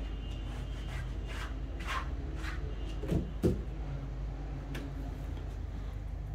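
Light clicks and knocks of household things being handled, with two dull thuds in quick succession about three seconds in, over a steady low hum.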